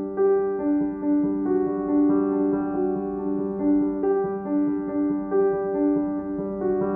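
Background music: a keyboard melody of evenly paced, sustained notes over a held low note.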